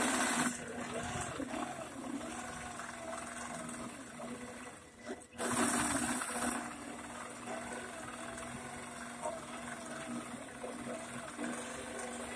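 Millennium longarm quilting machine stitching as it is guided across the quilt: a steady hum, with two louder rushing surges, one at the start and one about five and a half seconds in.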